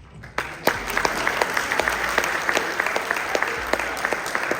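A crowd of mourners breaks into applause about half a second in, many hands clapping steadily at the end of a spoken eulogy.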